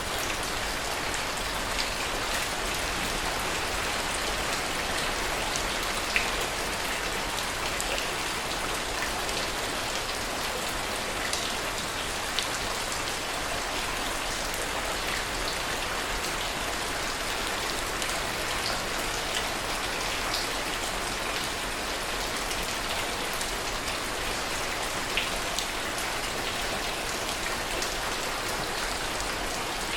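Steady rain falling: an even hiss with a few sharper drop ticks scattered through it.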